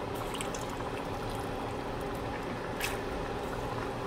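Wooden spoon stirring black-eyed peas into a pot of tomato and palm-oil soup: liquid sloshing, with faint ticks and one sharper click of the spoon against the pot about three seconds in.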